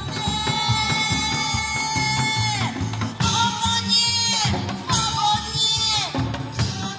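A woman singing a trot song through a microphone and PA over loud accompaniment with a steady beat, holding three long notes that each bend downward as they end.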